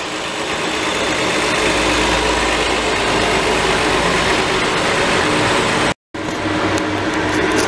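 2007 Toyota 4Runner running in gear on a lift, engine and A750E five-speed automatic transmission driving the wheels with a steady mechanical hum and whir. The transmission has a small grinding noise that the mechanic is trying to trace. The sound cuts out completely for a moment about six seconds in, then resumes.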